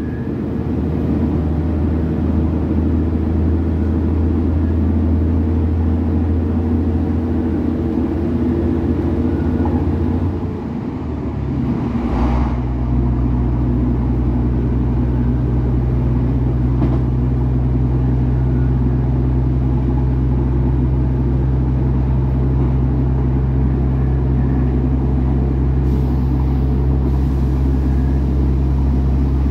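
Diesel engine and running noise heard from inside an Irish Rail Class 2800 railcar under way, a steady hum of several engine tones. About eleven seconds in the engine note briefly drops away and settles at a different, lower pitch, with a short sharp sound just after.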